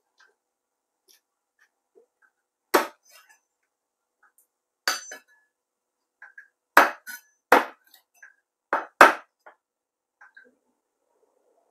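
Kitchen knife chopping a raw whole chicken on a thick wooden chopping block: about seven sharp chops at uneven intervals, several in quick succession in the second half, with faint cutting and handling sounds between them.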